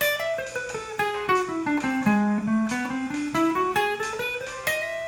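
Fender Stratocaster electric guitar through a Carol-Ann amplifier, playing a single-note scale run over a D7 chord: a Lydian dominant (D7 sharp 11, A melodic minor) scale. The notes step steadily downward for about two seconds, then climb back up to the starting pitch near the end.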